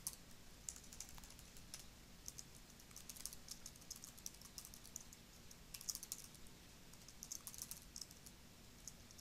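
Computer keyboard typing faintly, the keystrokes coming in quick irregular bursts.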